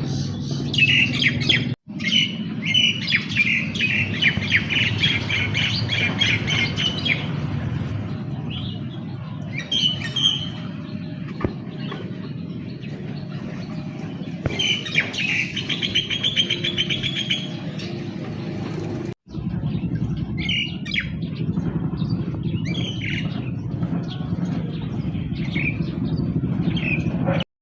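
Wild birds chirping outdoors: two long runs of rapid repeated chirps and scattered single calls, over a steady low outdoor background rumble. The sound drops out briefly twice, where the recording is spliced.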